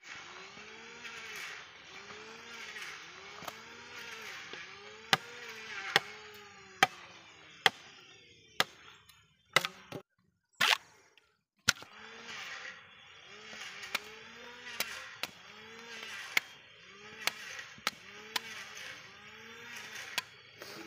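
A curved machete striking and splitting green bamboo: a string of sharp single chops, about one a second, with a short break in the middle. Behind them is a faint repeating rise-and-fall tone, about once a second.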